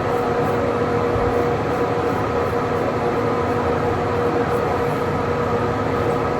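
Steady mechanical whir with a constant hum, unchanging throughout.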